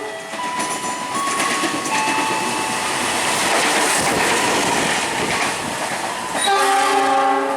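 Train running past at close range, wheels clattering on the rails with faint thin squeals. About six and a half seconds in, a train horn sounds a chord-like blast.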